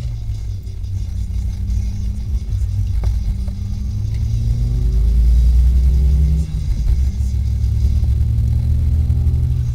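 Car engine heard from inside the cabin of a manual car under way: its note climbs steadily for about six seconds, drops suddenly, then picks up again.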